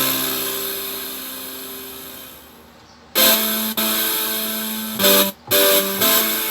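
Instrument notes played from an Akai MPK249 MIDI controller keyboard during a sound test after its repair: a chord struck at the start fades away over about three seconds, then new notes and chords follow, with a brief break about five seconds in.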